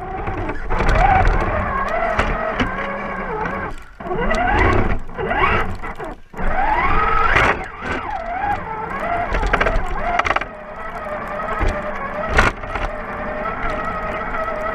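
Electric motor of a radio-controlled truck whining as it drives through fresh snow. Its pitch climbs steeply in several quick bursts of throttle in the middle, with short drops between them.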